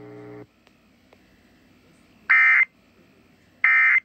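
Emergency Alert System end-of-message data bursts: two identical short bursts of high, screechy digital tones, each about a third of a second long and just over a second apart. Before them, a steady low buzz cuts off about half a second in.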